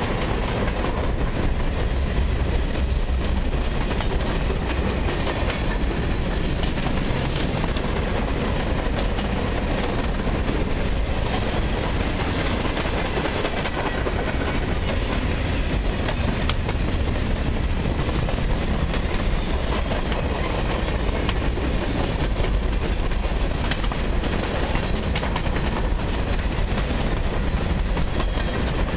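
Freight train's boxcars rolling past on the near track: a steady rumble and clatter of steel wheels on the rails.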